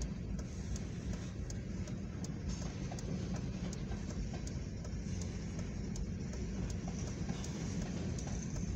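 Freight train tank cars rolling past at about 39 mph: a steady rumble of steel wheels on the rails, with scattered sharp clicks.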